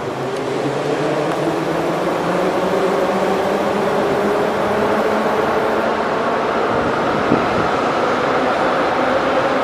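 Metrowagonmash 81-775 "Moscow-2024" metro train approaching along the tunnel into the station. Its rumble grows louder over the first few seconds, with several steady whining tones over it.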